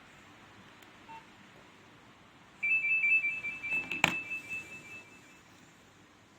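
A Nokia 2600 classic mobile phone playing a ringtone: a high, rapidly pulsing electronic beep pattern that starts about two and a half seconds in and lasts nearly three seconds. A sharp click sounds about four seconds in.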